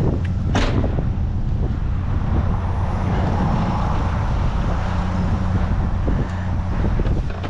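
Wind buffeting the microphone as a steady low rumble, with a brief knock about half a second in.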